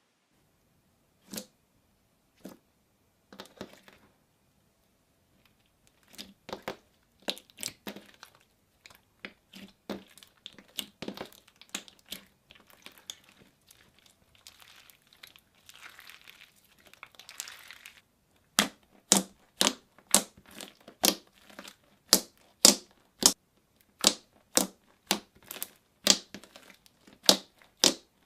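Slime being squished and kneaded by hand, giving scattered clicks and crackles. About two-thirds of the way in, these turn into a steady run of louder, sharp clicks at about two a second.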